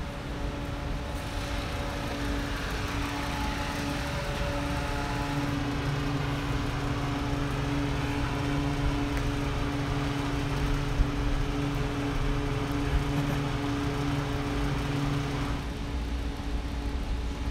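Rooftop ventilation machinery running: a steady hum made of a few constant tones over a broad rush of noise.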